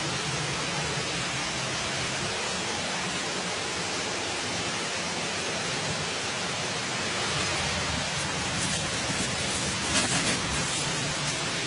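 Steady hiss of an open wood fire with pork roasting over it, the fat sizzling. Between about eight and eleven seconds in, a run of sharp crackles and pops rises above it as the flames flare.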